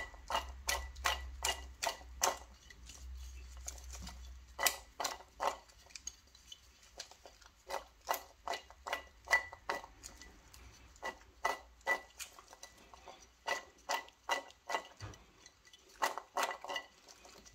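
Raw sweet potato cubes tumbling and knocking against a ceramic baking dish as it is shaken and tossed by hand to coat them in oil: a string of sharp, irregular clicks and taps, a few a second.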